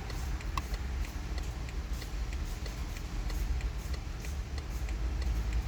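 Faint, rapid, evenly spaced ticking over a steady low rumble.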